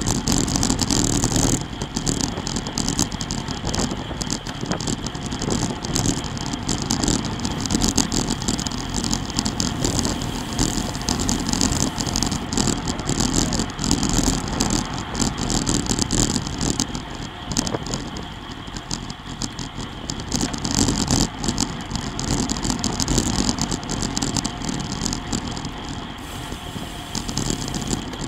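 Steady wind rush over a bike-mounted camera's microphone at about 27 mph, with constant road-vibration rattle and clatter from the road bike and camera mount. It eases a little for a couple of seconds past the middle.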